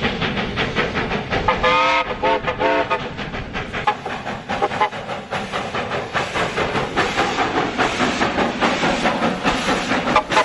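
Steam train running, with a fast, continuous beat of exhaust and track noise and two short whistle toots about two seconds in.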